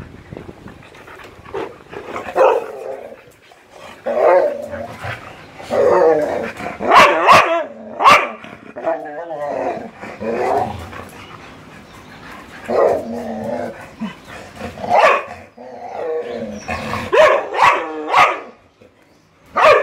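Siberian husky vocalizing in play: a string of short, wavering barks and growls, one every second or two. It is play-talk, the dog inviting a game, not aggression.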